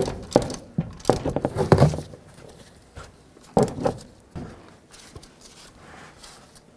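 Scattered small metallic clicks and clinks of nuts being threaded onto the strut's top mounting studs and snugged with a ratchet, with a quick cluster of clicks about a second in.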